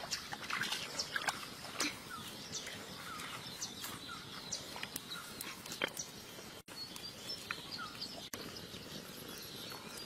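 Light clicks and rustles of raw whole prawns being handled and laid in a pot, with a few faint short chirps in the background.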